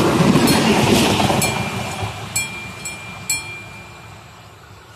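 Regional diesel railcar passing close by and running on away, loudest in the first second and fading steadily as it moves off. A few sharp clicks and a thin high tone sound in the middle as it goes.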